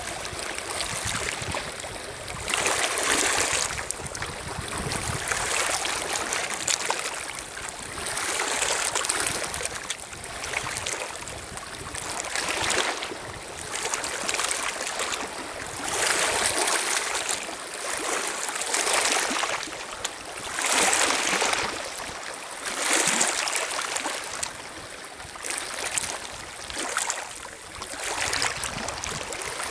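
Small lake waves lapping on a pebbly shore, the water washing over the stones in swells that rise and fade every two to three seconds.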